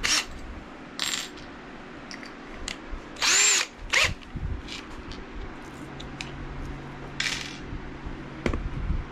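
Cordless drill motor spun in four short trigger bursts, the longest and loudest about three seconds in, its whine rising and falling as it speeds up and slows, with a few clicks of handling between. The drill is being readied with a bit in its keyless chuck for drilling pilot holes.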